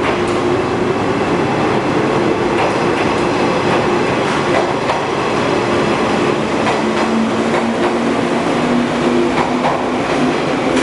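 JR East 107 series electric train pulling out and passing close by, with a steady hum from its motors and wheels clicking over rail joints.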